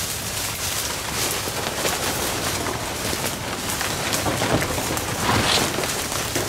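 Footsteps crunching through dry leaf litter and palmetto fronds rustling and scraping as people and a dog push through dense brush, a steady crackle with a few louder scrapes about five seconds in.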